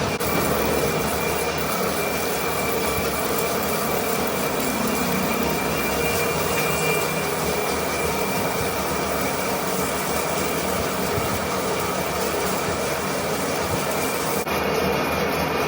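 Manual metal lathe running steadily while turning a steel workpiece: a continuous machine din with a steady high whine.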